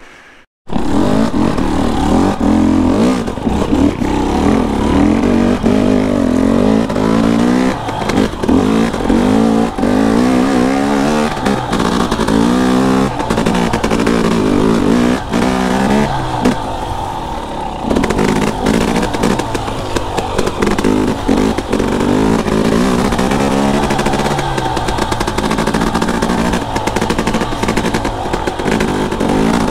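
KTM enduro dirt bike engine running under the rider, revving up and dropping back again and again as the throttle is opened and closed.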